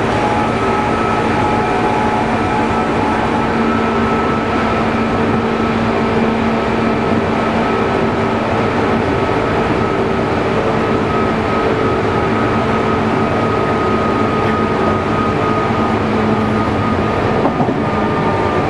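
JR East Chuo Rapid Line electric commuter train running at steady speed, heard from inside the carriage: an even rumble of wheels on rail with a steady whine from the electric drive.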